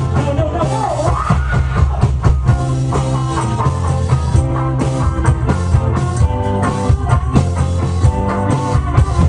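Rock band playing live: electric guitars, bass and drum kit, with a sung line near the start.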